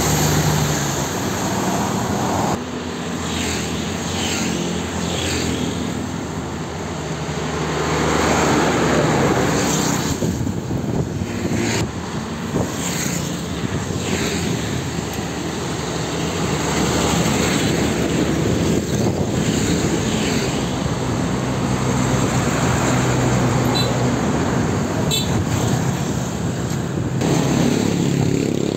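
Road traffic at a bend: large diesel buses and trucks passing close by one after another, engines running over tyre noise, swelling and easing as each vehicle goes past.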